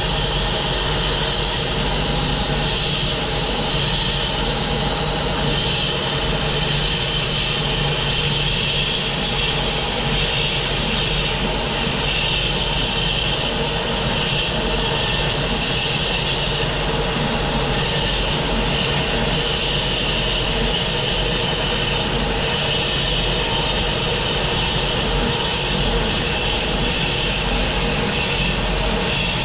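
Bandsaw sawmill running steadily, its blade cutting lengthwise through a willow log, with an even hiss from the cut over the engine.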